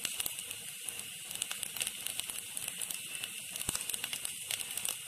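Oil sizzling with a light, irregular crackle in a pan of rice-flour balls sautéing with onion and spices.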